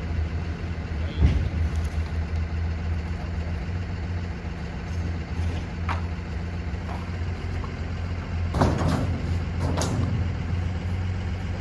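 A vehicle engine running steadily at idle, with a few knocks and clatters over it. The loudest clatters come about a second in and again around nine to ten seconds in.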